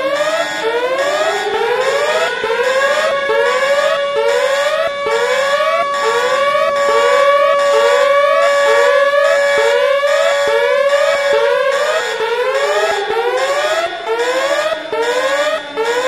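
Emergency-alert alarm sounding a nuclear attack warning: a wailing siren tone rises, holds steady through the middle and falls near the end. It is layered with rapidly repeating rising whoops, about two a second.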